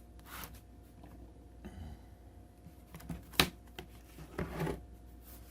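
Light clicks and handling noises of small plastic and metal parts on an opened laptop, with one sharp click about three and a half seconds in.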